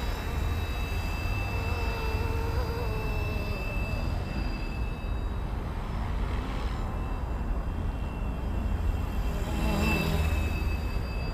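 Electric FlyWing FW450 V2 RC helicopter in flight at 80% head speed: its rotor blades and motor run with a steady high whine and a wavering tone as the rotor speed shifts. It gets louder about ten seconds in as it passes close.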